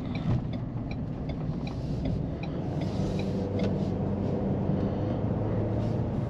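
Cabin sound of a 2022 Ford Edge's 2.0L EcoBoost turbo four-cylinder pulling away from a turn: a steady engine and road drone. A light, regular ticking runs through the first two seconds or so.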